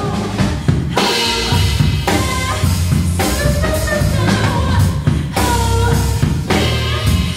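Live band music: a drum kit playing a steady beat with bass drum and snare strokes under electric bass, piano and a held melodic line.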